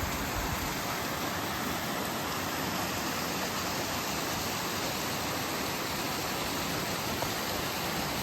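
Water pouring steadily over a lake's overflow, swollen after heavy rainfall: a continuous rushing.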